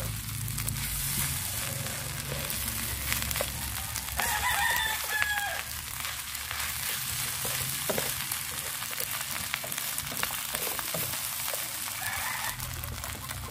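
Egg fried rice sizzling in a nonstick frying pan as a wooden spatula stirs and scrapes it, with scattered light clicks. A rooster crows about four seconds in.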